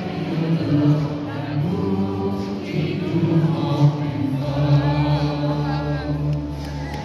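Many voices singing together like a choir, with long held notes. A low steady note joins about halfway through.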